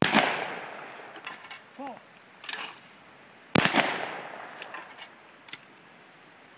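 Two 12-gauge shotgun shots about three and a half seconds apart, each followed by a long fading echo.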